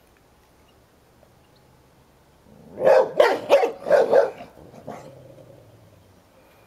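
Hovawart snapping out a quick volley of about five loud, sharp barks, then a fainter bark and a low growl that fades. He is warning off a younger dog that is crowding the toy he is guarding.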